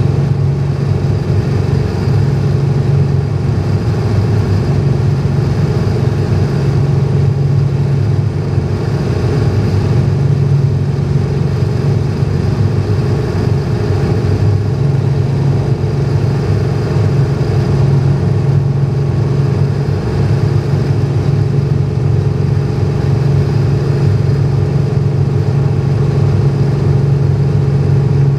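Cessna 210's six-cylinder piston engine and propeller droning steadily, heard from inside the cockpit on a landing approach.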